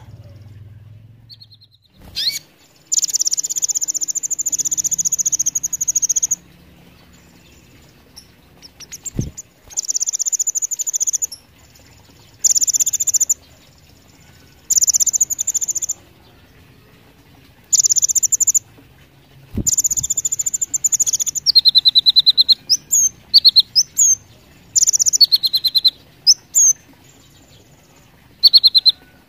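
Kolibri ninja (Van Hasselt's sunbird) singing hard: a string of high, fast, rattling trills, each one to three seconds long with short pauses between. From about two-thirds of the way through, the song turns into quicker, shorter chirps and sharp rising notes. Two brief knocks sound partway through.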